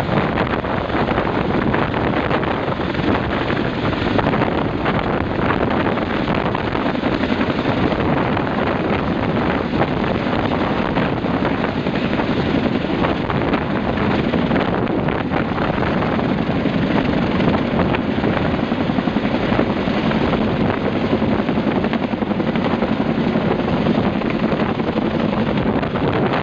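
Helicopter flying, a steady rotor and engine noise, with wind buffeting the microphone.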